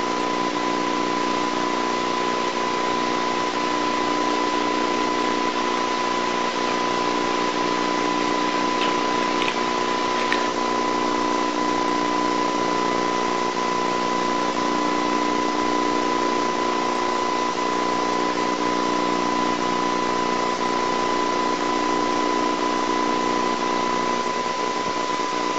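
Steady hiss with a constant high tone and a low hum underneath, unchanging throughout: the background noise of an old videotape's soundtrack.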